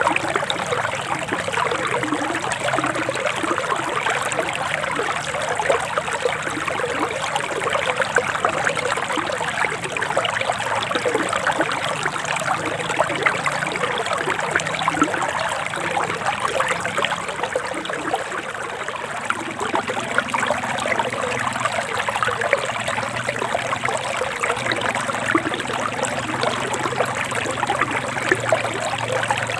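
Forest stream flowing steadily, water trickling and splashing over rocks.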